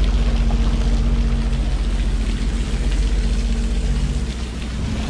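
Jet ski engine idling with a steady low pulsing rumble, under a hiss of water falling from the rock face.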